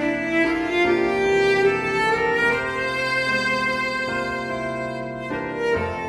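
Slow background music of long held notes on bowed strings, the melody moving to a new note every second or so.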